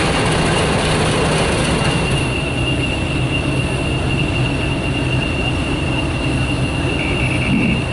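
British Rail Class 50 diesel-electric locomotive running close by, a continuous low engine sound with a steady high-pitched whine over it.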